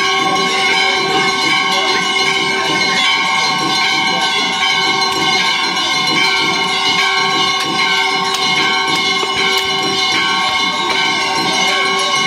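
Temple bells ringing without pause during the evening aarti: many overlapping bell tones held steady, with a fresh strike now and then.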